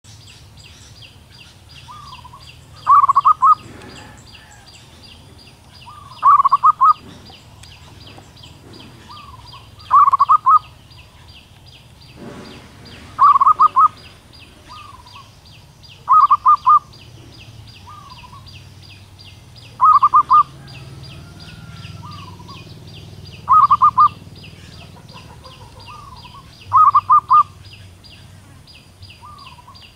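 Female zebra dove calling: a soft lead-in note followed by a quick run of rapid cooing notes, repeated eight times about every three and a half seconds. It is the call a female gives to draw males.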